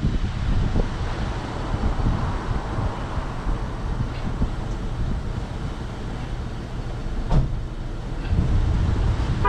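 Low, steady rumble of an idling car and passing road traffic, with one sharp knock about seven and a half seconds in.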